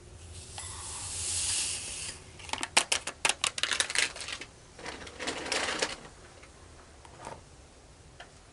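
Handling noises: a rustle lasting over a second, then a quick run of sharp clicks, another rustle, and a last single click near the end.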